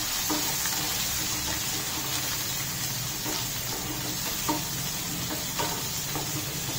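Boiled potato cubes frying in mustard oil in a kadhai, with a steady sizzle. A wooden spatula stirs and scrapes through them, giving a light knock every second or so.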